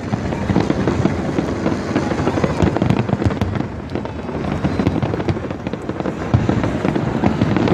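Fireworks finale: a rapid, continuous barrage of aerial shell bursts and crackling with no pauses between them.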